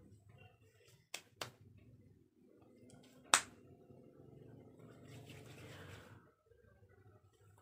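Hands applying moisturizer to the face: two light sharp pats about a second in, then a single loud sharp slap a little after three seconds. A soft rubbing hiss follows for about a second around five seconds, as the palms rub together.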